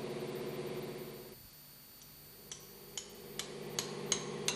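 Marine diesel engine's turning gear humming as it turns the engine over. The hum dies away about a second in and starts again. From halfway through come a run of sharp metallic clinks, about two or three a second.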